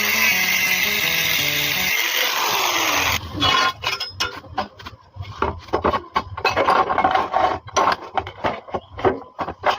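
Background music with a falling sweep that cuts off about three seconds in, followed by irregular, choppy rasping and scraping from metal-cutting work.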